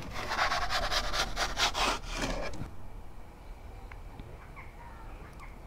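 Wooden pizza peel scraping across the oven's stone floor as a pizza is launched off it and the peel is pulled back out. The rough rasping lasts about two and a half seconds, then stops.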